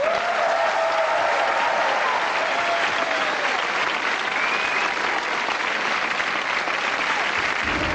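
Studio audience applauding steadily, with some shouted cheers over the first few seconds.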